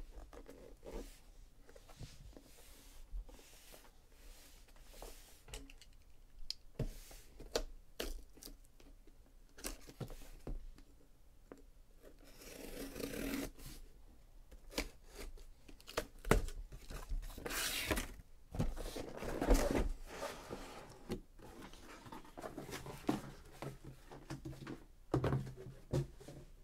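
A cardboard shipping case being opened by hand: packing tape tearing in a few longer rips, with scattered knocks and scrapes of cardboard being handled.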